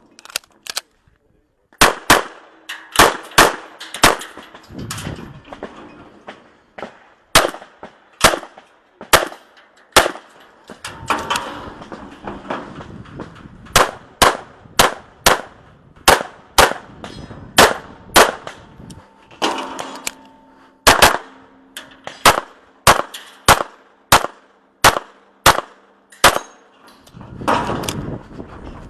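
Handgun fired in quick strings, mostly double shots, with a few short pauses between strings, during an IPSC Production-division course of fire. A metallic clang rings out, consistent with steel targets being hit.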